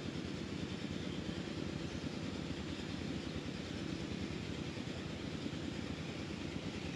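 Steady rushing of a shallow river running over rocks, with a deep low rumble.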